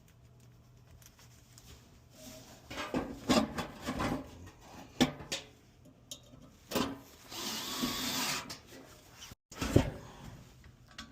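Hand work on a furnace blower assembly: irregular knocks and clatter of tools, screws and sheet-metal parts, with a noisy burst lasting about a second past the middle and a sharp knock near the end.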